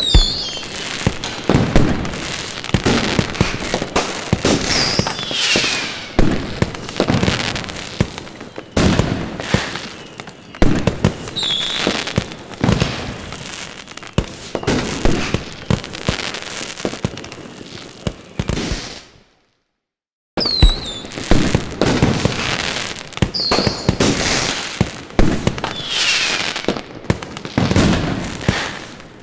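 Fireworks going off in the distance: repeated sharp bangs with crackling and a few short falling whistles between them. The sound cuts out briefly about two-thirds of the way through, then starts again.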